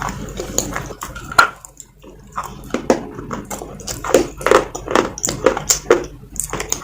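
Close-up chewing and crunching of pieces of a soft baked-clay gullak (clay money pot): a run of irregular crisp crunches mixed with wet mouth sounds, with a short lull about two seconds in.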